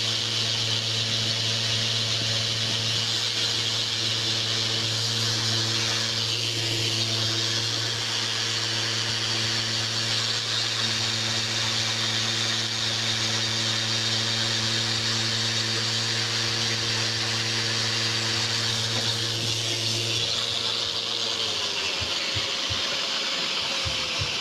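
Festool sander running steadily, its abrasive pad grinding through old lead paint on wood, with a steady motor hum and bright hiss. Near the end the low hum drops out and the motor's pitch begins to fall as it winds down.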